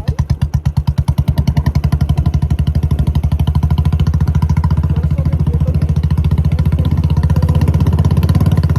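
Royal Enfield Standard 350 motorcycle's single-cylinder engine running under way, its distinct even thump picking up pace over the first couple of seconds and then holding a steady, faster beat.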